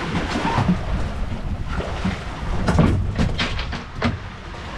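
Steady low rumbling noise of a boat out on the water, with wind on the microphone, and a quick run of knocks and clicks about three seconds in.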